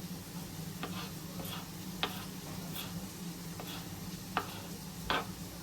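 Bacon frying in a pan, a faint sizzle with a few sharp pops and spatters, over a steady low hum.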